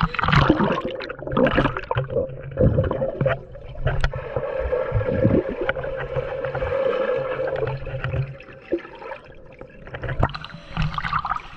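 Water splashing and gurgling as someone swims, with irregular splashes throughout.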